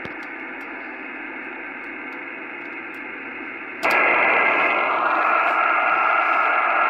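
Two-way radio receiver static through a small external speaker, with no voices. A little under four seconds in it jumps much louder as a carrier comes in, with steady whistling tones over the hiss.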